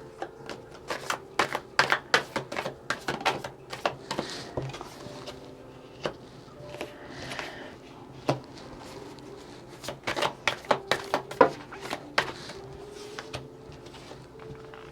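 Tarot cards being shuffled by hand: a quick run of papery flicks and taps, thick in the first few seconds, sparse in the middle, and thick again about ten seconds in.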